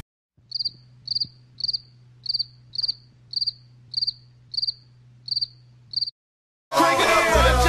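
Cricket chirping sound effect, the stock 'crickets' gag for an awkward silence: short, high chirps repeating about twice a second over a faint low hum. Hip-hop music cuts back in near the end.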